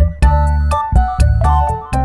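Background music: a synthesizer tune over deep bass notes and a steady beat.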